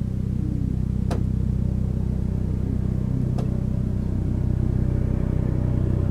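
Steady low hum of an engine or motor running at an even idle, with two faint clicks, about a second and about three and a half seconds in.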